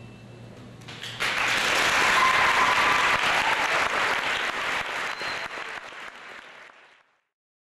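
Audience applauding, breaking out suddenly about a second in, then thinning out and cutting off abruptly near the end.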